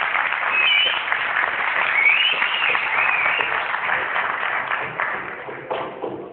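Audience applauding, with a few high rising-and-falling calls over the clapping in the first half; the applause dies away near the end.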